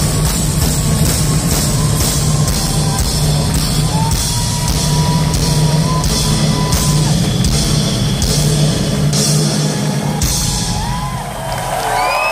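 Live rock band playing loud through a concert PA, with a steady drum beat and a heavy bass. The band stops about ten seconds in, and the crowd starts cheering and whooping near the end.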